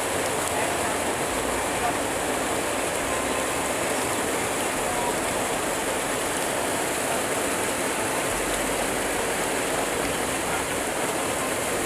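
River water rushing steadily, a constant noisy wash.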